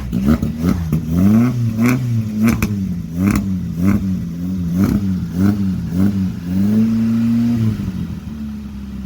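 A car engine that has just fired up after being dead, revved in quick repeated blips with sharp cracks on some of them to keep it running, held up briefly, then settling to a steady idle near the end.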